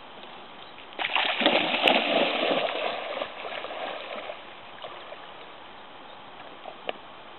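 A dog leaping into shallow river water with a splash about a second in, followed by a few seconds of water churning as it swims off, fading out.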